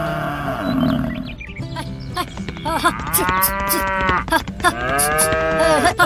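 Cattle mooing: a moo tailing off in the first second, then two drawn-out moos that rise and fall in pitch in the second half.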